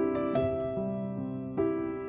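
Soft background piano music, slow notes struck about every half second and left to ring.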